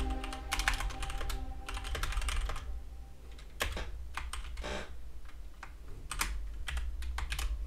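Typing on a computer keyboard: runs of quick, irregular keystrokes with short pauses between words.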